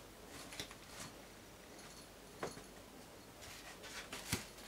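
Faint rustling and a few light clicks and knocks as a cat paws and noses among shoes on an entryway floor, the loudest knock near the end.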